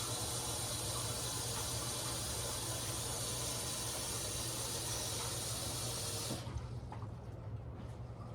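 Water running steadily from a tap, shut off about six seconds in.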